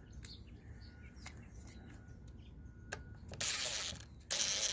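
Cordless drill with a countersink bit cutting into cedar in two short runs, a hissy cutting sound, after a few small handling clicks.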